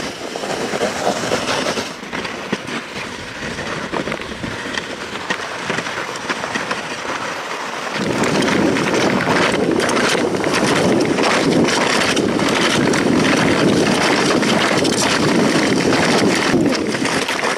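Sled runners sliding fast over packed snow, a steady scraping hiss with wind on the microphone. From about eight seconds in it gets louder and rougher, with many small knocks as the sled rattles over bumps.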